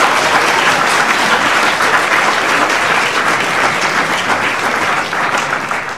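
A theatre audience applauding, dense and steady.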